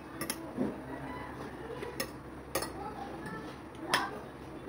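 A fork and spoon clinking and scraping against a plate while eating: a handful of separate clinks, the loudest about four seconds in.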